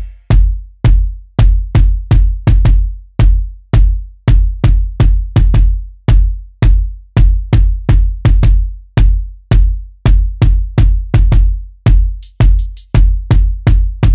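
Programmed hip-hop drum beat from Maschine's drum synths playing on its own: deep booming kicks under short sharp hits in a steady groove, with a quick run of high hi-hat ticks near the end.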